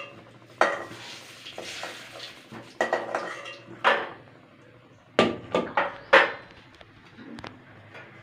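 Metal spatula clanking and scraping against a metal kadai as fried potatoes are scooped out into a steel bowl: separate sharp clanks with short ringing, then a quick cluster of several clanks about five seconds in.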